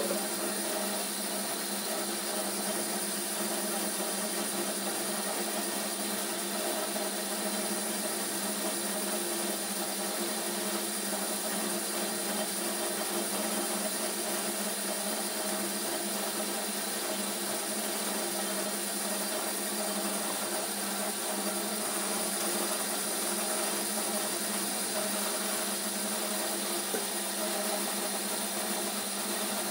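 Small electric pellet mill running steadily as feed mash is fed into it and pressed into pellets.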